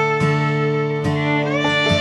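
Instrumental acoustic string music: a fiddle holding long notes over plucked strings, with a note change about every second.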